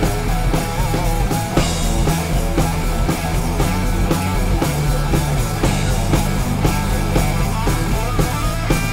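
Rock music with electric guitar, bass and a steady drum beat.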